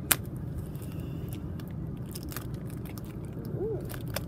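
Foil wrapper of a Roblox blind-bag toy being torn open and crinkled by hand, with a sharp snap right at the start and scattered crackles after it. Steady low road rumble of a moving car's cabin underneath.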